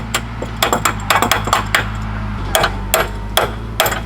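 A wrench banging on a steel tow hook wedged in a tow chain: a dozen or so sharp, irregular metal clanks in quick clusters, struck to knock the jammed hook free. A steady low hum runs underneath.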